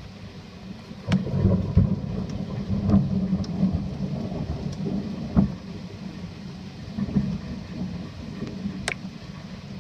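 Thunder rumbling over steady rain. The rumble starts about a second in, rolls on with several swells and fades near the end.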